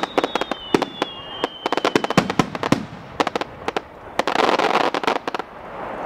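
Fireworks display: a rapid string of sharp shell reports, with a thin whistle slowly falling in pitch over the first two seconds. About four seconds in comes a dense crackling rush lasting about a second.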